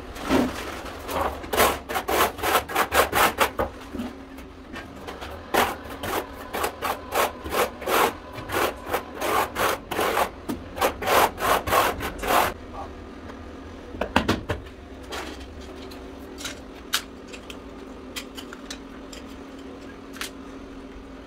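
Trowel scraping tile adhesive across the back of a large ceramic floor tile in quick repeated strokes, about two or three a second. The strokes stop a little past halfway, leaving scattered light clicks and knocks.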